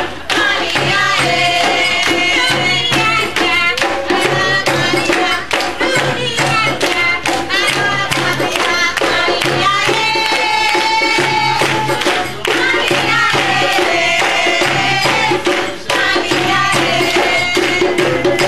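Live music: voices singing a melody over hand drums and a jingling tambourine-like percussion, the drum beating a steady pulse throughout.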